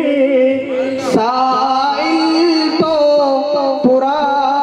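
A man singing a naat (Urdu devotional poem in praise of the Prophet), drawing out long held notes that waver and bend in pitch, with a few short breaks between phrases.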